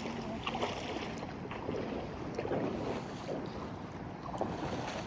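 Steady rush of river water, with wind buffeting the microphone and a few faint clicks and knocks.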